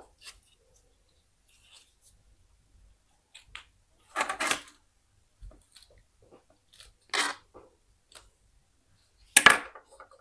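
An old ZTE phone's small plastic and metal parts being handled and worked apart: three short loud sounds, each under a second and the last the loudest, among faint clicks.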